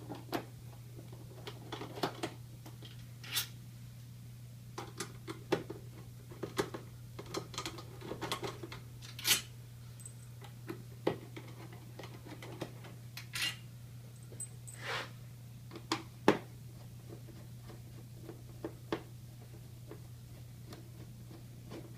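Scattered light clicks and taps of a screwdriver and small screws against a metal panel frame as screws are backed out and set down, over a steady low hum.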